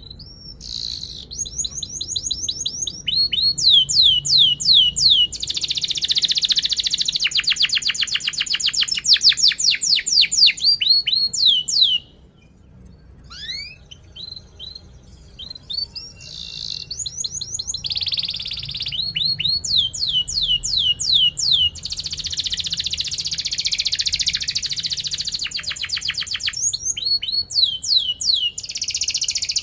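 Domestic canary singing loudly: runs of quick falling whistled notes and fast rolling trills. It breaks off briefly about twelve seconds in, then sings on.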